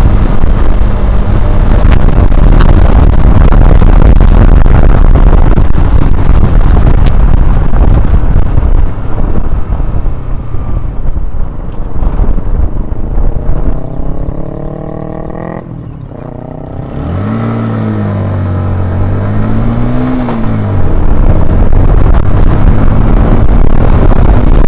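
Wind roaring over the helmet or bike-mounted camera's microphone at riding speed, easing off as the Honda CBR125R slows. The bike's single-cylinder engine can then be heard climbing in pitch and dropping twice as it shifts up through the gears, before wind noise drowns it out again.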